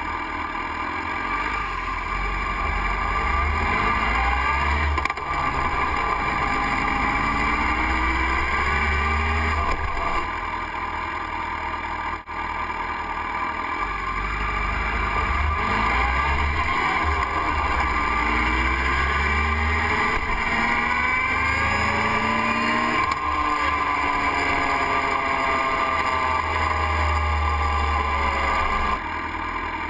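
Motorcycle engine heard from an onboard camera, pulling away and accelerating through several gear changes, its pitch rising and dropping back at each shift. Near the end the pitch falls away as the bike slows.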